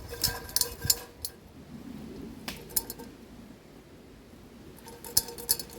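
Metal clinks and scrapes against a frying pan in three short clusters, near the start, around the middle and near the end, with the pan ringing briefly after the clinks: nettle seeds being stirred as they dry-toast in the pan.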